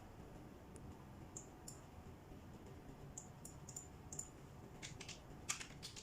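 Faint, sharp clicks of the KVM switch's front menu button being pressed. They come a few at a time, with a quicker, louder run of clicks near the end.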